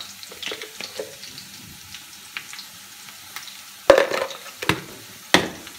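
Cubed potatoes frying in oil in a kadhai, sizzling steadily. A metal spatula clicks against the pan now and then, then knocks and scrapes against it three times in the last two seconds.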